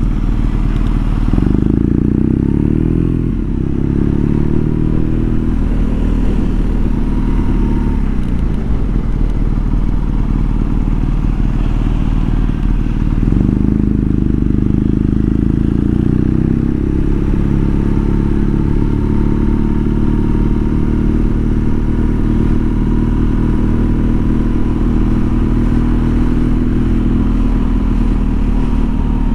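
BMW R nineT's air/oil-cooled boxer-twin engine running at town speed along with wind and road noise, its note climbing twice as the bike accelerates, about a second and a half in and again near thirteen seconds.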